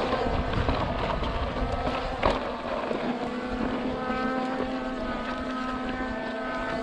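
Skydio 2 drone hovering nearby, its propellers giving a steady motor-like buzz of several held tones, with wind on the microphone and a single knock a little after two seconds in.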